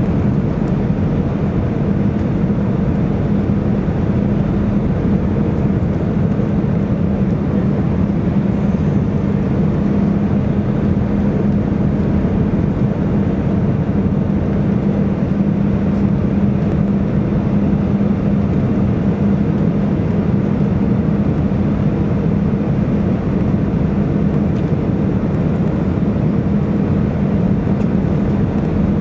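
Steady cabin noise of an Airbus A319 in flight, heard from a window seat by the wing: jet engine and airflow rush with a constant low hum, during the descent toward landing.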